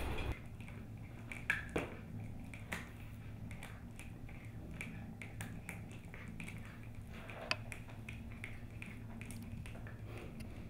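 Scattered light clicks and taps of kittens' paws and claws on a small plastic basket and tile floor as they climb in and around it, over a steady low hum.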